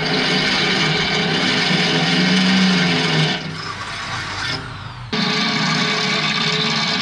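Electric drill starting suddenly and running hard, drilling through steel. It eases off for a couple of seconds near the middle, then runs at full speed again.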